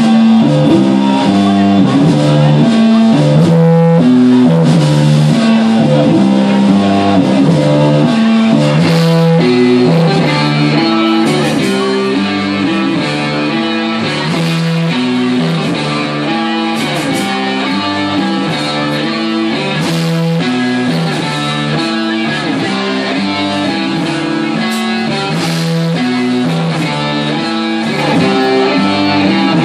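Live psychobilly band playing an instrumental passage, led by a distorted electric guitar riff over bass, with no singing. The music gets slightly quieter about ten seconds in.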